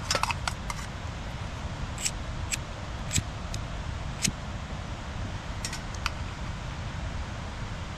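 Light metallic clicks and taps, about eight scattered over several seconds, as a metal spoon is worked on a small meths camping stove, over a steady low rumble of wind on the microphone.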